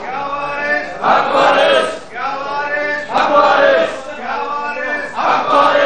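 A group of men chanting in unison, a loud phrase repeated about every two seconds.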